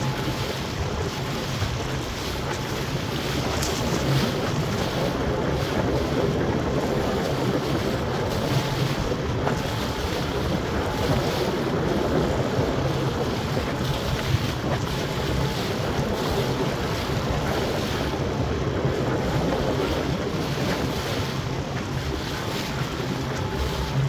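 Wind buffeting the microphone and choppy lake water splashing against the hull of a small fishing boat under way, over a steady low hum.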